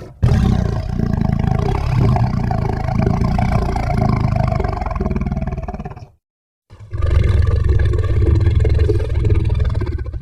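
Custom Tyrannosaurus rex roar sound effect, layered from animal and movie-creature sounds. A long, low, rough roar lasts about six seconds, then stops dead. After a brief silence a second roar of about four seconds follows.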